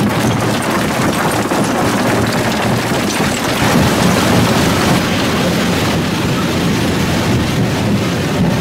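Lippmann 3862 single toggle jaw crusher running under load, crushing quarry rock: a steady, loud mix of machine noise and grinding rock.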